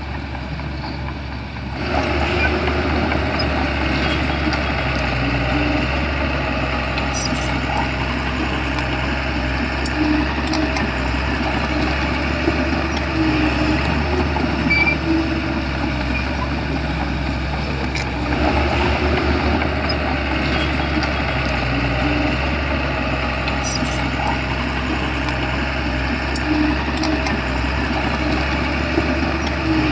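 Shantui crawler bulldozer's diesel engine running steadily, growing louder about two seconds in, with a few short metallic clicks.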